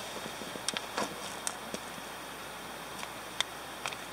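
Steady hiss of a Jetboil MiniMo gas stove burning, with scattered sharp crinkles and clicks from a plastic food pouch being handled.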